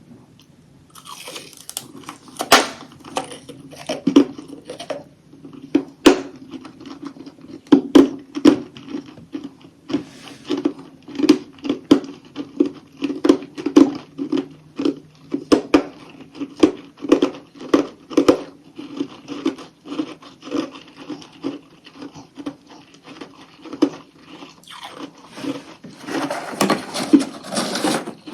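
Close-up crunching and chewing of chunks of humidifier-made freezer frost, starting about a second in. It is a steady run of sharp bites and crunches, about one to two a second, with chewing between them and a denser burst of crunching near the end.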